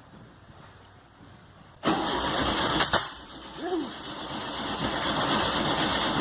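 Volkswagen Beetle's air-cooled flat-four being cranked on the starter, beginning suddenly about two seconds in, with a sharp click a second later. It cranks without catching, which the owner puts down to fuel not reaching the carburettor.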